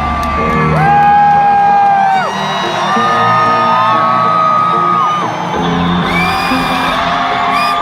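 Live concert music played loud over a crowd of fans screaming and whooping, many high voices overlapping.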